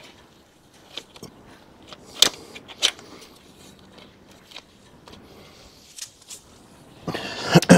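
Light clicks and knocks of a metal mesh radiator guard being pressed and positioned against a motorcycle radiator on its rubber grommets, the sharpest about two seconds in. Near the end comes a louder scuffing, rustling burst lasting about a second.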